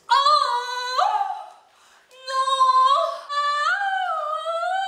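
A woman's long, high-pitched wailing cries of dismay, about four drawn-out notes in a row, the last one wavering up and down.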